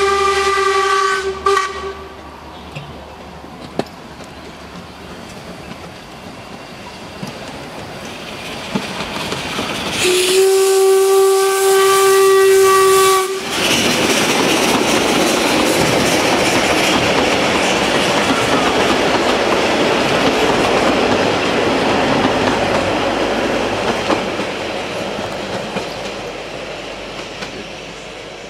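Steam tank locomotive Wa165. Its steam whistle ends a short blast just after the start, then it sounds one long blast of about three seconds. The engine then passes close by with its carriage, a rush of wheels on rail and running gear that swells, holds and fades away toward the end.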